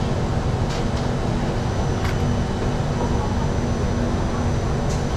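Steady hum and rumble of an MRT train standing at a station platform with its doors open, with a low steady drone and a few light clicks.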